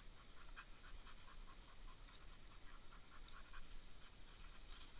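Faint panting of a Russo-European laika, with small irregular ticks.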